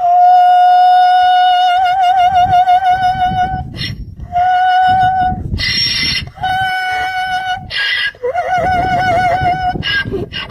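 Donkey braying: four long, high, wavering squealing notes with short breaks between them, mixed with lower rasping sounds.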